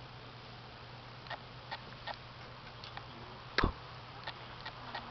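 Kittens nosing and pawing at a Furby in a wooden crate: scattered light ticks and taps, with one louder knock about three and a half seconds in. A steady low hum runs underneath.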